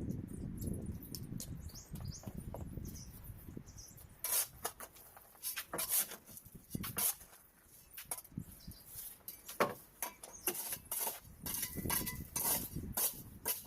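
Irregular light clicks, taps and knocks, many of them from about four seconds in, after a stretch of low rumbling with small birds chirping.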